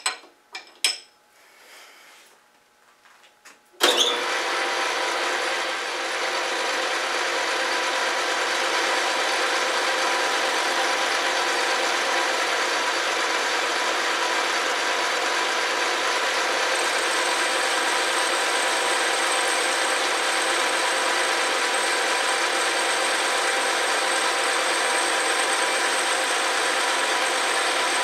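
Metal lathe starting up sharply about four seconds in, then running steadily with a whine of motor and gear train while a final cut takes the last few thousandths off a turned disc. A faint high whistle joins about halfway through.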